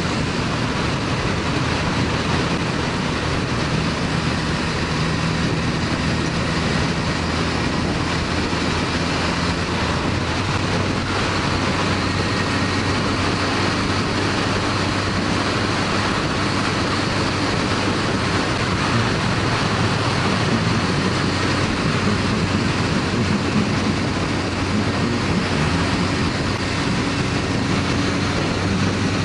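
Motorcycle running at road speed, its engine a steady drone under a strong rush of wind over the microphone. The bike is a Honda CB1100EX with an air-cooled inline-four.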